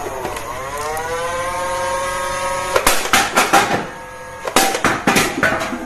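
A toy gun's small electric motor whirring: the pitch dips briefly, then rises to a steady whine. About three seconds in comes a run of rapid clacks, and a second run follows a second or so later.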